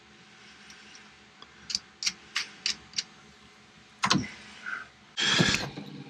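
Metal clicks of an open-ended spanner working the terminal nuts of a lead-acid battery, about five clicks a third of a second apart, then a knock and, near the end, a louder rattling scrape of metal and cables being handled.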